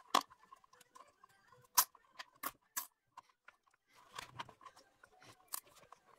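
Hand tools and engine parts being handled: a handful of sharp clicks and knocks at irregular spacing, with a short stretch of rustling about four seconds in.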